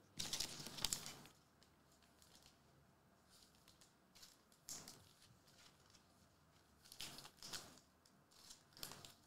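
Faint rustling and crinkling of trading cards being handled over a table, in a few short bursts. The loudest comes in the first second, with smaller ones near the middle and toward the end.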